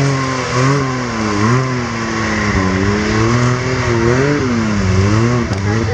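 Can-Am Maverick X3 side-by-side's engine revving up and down, its pitch rising and falling several times.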